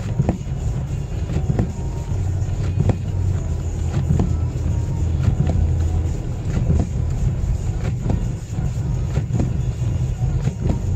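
Inside the cabin of a Mazda3 driving on a snow- and ice-covered road: a steady low drone of engine and tyres, with a short sound repeating about every second and a quarter.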